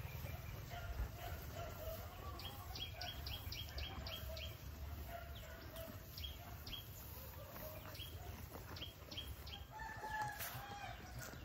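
Domestic chickens clucking, with a longer crowing call about ten seconds in and quick series of high chirps.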